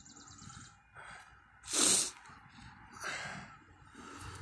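A person coughing hard: one loud, forceful cough about two seconds in and a weaker one about a second later.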